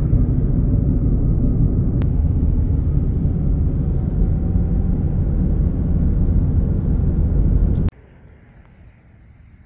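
Steady low road rumble inside a car driving at highway speed, with a click about two seconds in. It cuts off suddenly about eight seconds in, leaving only faint outdoor background.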